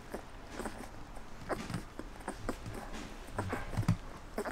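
Three-week-old German wirehaired pointer puppies suckling at their mother, making irregular wet smacking and clicking sounds several times a second.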